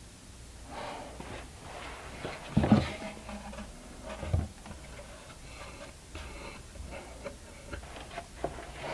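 Scattered light clicks and knocks of things being handled, with a louder knock about three seconds in and another a little later.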